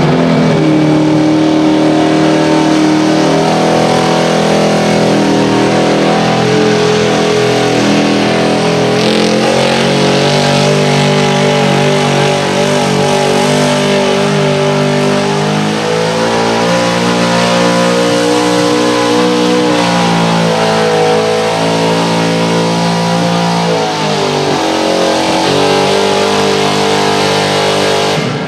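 Square-body Chevrolet pickup's engine running hard at high revs under load, pulling a weight-transfer sled on a rough, mud-churned track. Its pitch climbs a few seconds in and again about halfway, dips near the end and rises once more.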